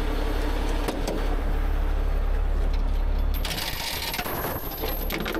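A heavy rotator tow truck's diesel engine idles with a steady low rumble. About three and a half seconds in, metal clinks and rattles at the truck's side compartment, where the recovery chains hang.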